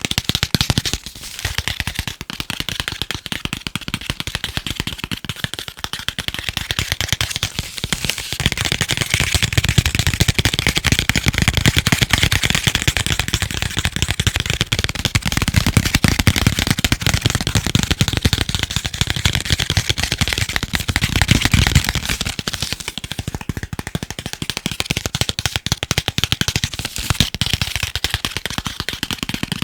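Fast, dense tapping on chocolate, a rapid run of small clicks, fuller and heavier through the middle stretch.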